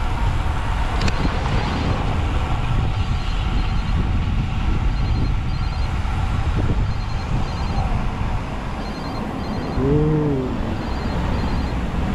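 Wind rushing over the microphone of a bike-mounted camera, with tyre and road noise from a road bike riding along: a steady, loud rumble. A short voiced sound about ten seconds in.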